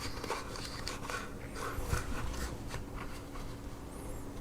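Soft rustling and scraping with scattered small clicks: hands unwrapping and handling a new Victorinox Explorer Swiss Army knife.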